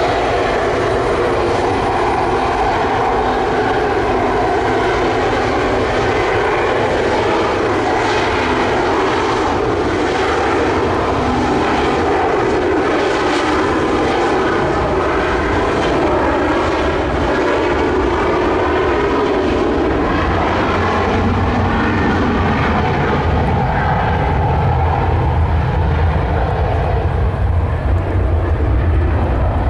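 McDonnell Douglas MD-80-series jet's rear-mounted Pratt & Whitney JT8D turbofans at takeoff thrust during the takeoff roll, loud and steady, with a deep rumble growing stronger in the last several seconds.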